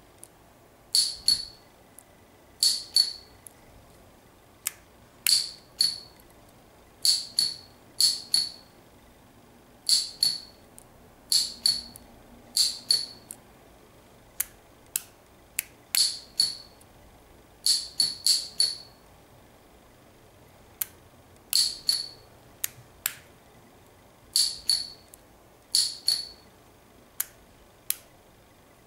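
Small open-frame solenoid snapping its plunger in and back out, worked from a push button on a homemade control circuit: about a dozen sharp metallic clicks with a brief ring, mostly in pairs a fraction of a second apart, at irregular intervals, with a few fainter single ticks between.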